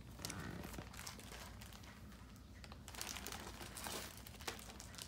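Plastic bags crinkling and rustling as they are handled: clear plastic bags of pins and a plastic shopping bag, in quiet, irregular rustles.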